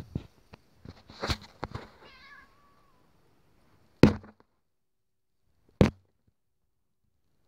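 Black house cat's short wavering meow about two seconds in, among scuffling and rubbing during rough play. Two loud sharp thumps follow, about four and six seconds in.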